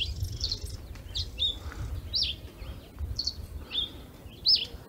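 Small birds chirping: short, high, arching chirps repeating about once or twice a second, over a low steady rumble.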